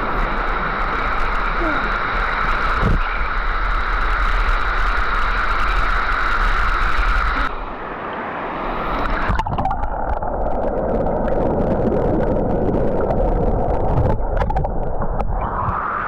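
Waterfall pouring into a rock pool: a loud, steady rush of falling water that changes abruptly about halfway through.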